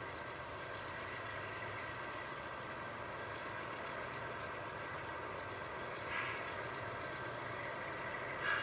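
G scale model Dash 9 diesel locomotives hauling a freight train, running steadily on a curved outdoor track, with two brief louder sounds about six and eight and a half seconds in.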